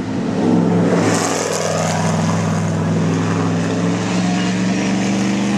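Racing sports car engine running hard past a spectator at the circuit, its note steady and climbing slightly in pitch near the end.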